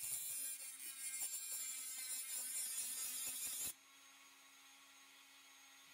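Small hand-held rotary tool with a cutting disc grinding a slot into the head of a seized steel screw, a steady high hissing grind that stops abruptly just over halfway through.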